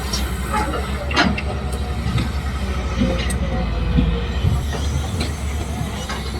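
Heavy machinery running with a steady low rumble, with metallic squeaks and occasional clanks.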